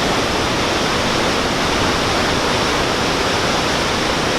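Victoria Falls thundering: a steady, loud roar of falling water heard from a viewpoint.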